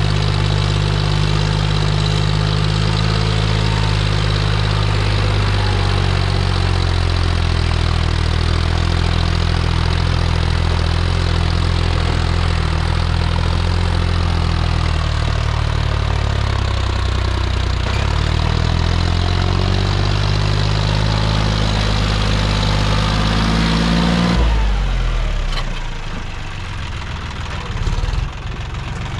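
John Deere 5050D tractor's three-cylinder diesel engine running hard under load, pulling a heavily loaded soil trolley, its pitch shifting and rising somewhat in the second half. About 25 seconds in the throttle comes off and the engine drops to a quieter, lower run.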